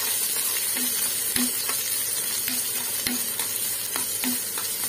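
Chopped shallots frying in hot oil with urad dal and mustard seeds, sizzling steadily while a spoon stirs them, with repeated clicks and scrapes of the spoon against the pan.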